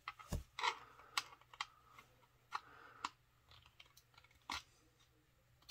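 Small screwdriver working into the edge seam of a hard plastic ANACS coin holder, giving scattered faint clicks and creaks of plastic as it is pried and twisted.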